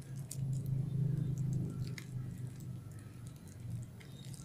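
Small clicks and ticks of stationery handled in a zippered fabric pencil case, as fingers pick through erasers in its mesh pocket, over a low steady hum that is loudest in the first couple of seconds.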